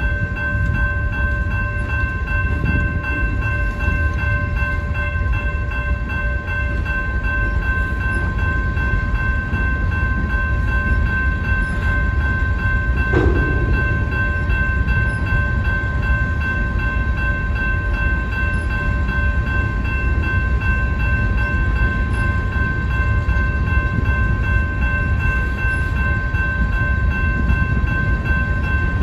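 Union Pacific freight cars rolling past, a steady low rumble of wheels on rail, under the continuous ringing of a railroad grade-crossing bell. One brief clank about halfway through.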